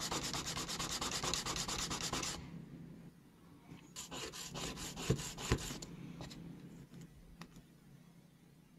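A small piece of plastic card rubbed by hand on a flat sheet of sandpaper: quick, even back-and-forth sanding strokes that stop a couple of seconds in. A second short run of strokes comes around the middle, with two dull knocks, and a few faint clicks follow.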